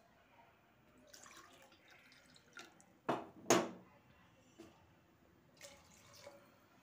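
Water poured from a steel tumbler into a pressure cooker of soaking rice and peas, splashing and dripping faintly. Two sharp knocks come a little after three seconds in.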